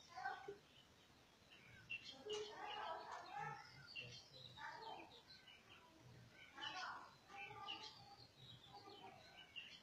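Faint, indistinct voices with birds chirping now and then.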